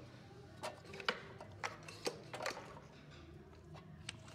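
Irregular metal clicks and knocks as a pressure washer pump is worked onto an engine's keyed crankshaft and the crank is nudged to line up the key, about seven in a couple of seconds, the loudest about a second in.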